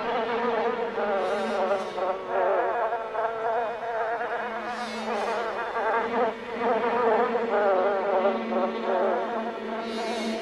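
A swarm of flies buzzing: many wavering buzzes layered into one dense, steady drone.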